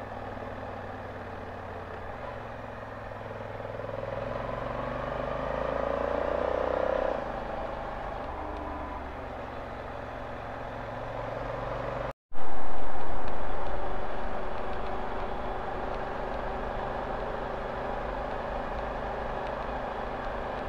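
Honda Africa Twin motorcycle engine and road noise while riding; the engine pitch climbs for several seconds, then drops about seven seconds in. Around twelve seconds in the sound cuts out briefly, returns as a sudden loud rush that fades over a couple of seconds, then settles into steady riding noise.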